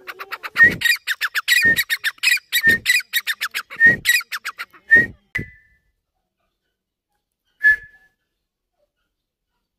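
Teetar (francolin) calling: a fast run of harsh notes, about seven a second, with a louder accented note roughly once a second, for about five seconds, then a single short note a couple of seconds later.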